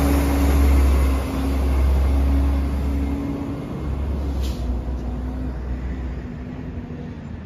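Autocar Xpeditor front-loader garbage truck's engine running as the truck drives away, a low rumble that fades steadily as it pulls off down the street.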